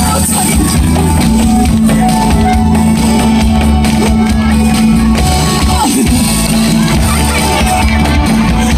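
Loud music over a stage sound system, with a drum beat and a steady held bass line.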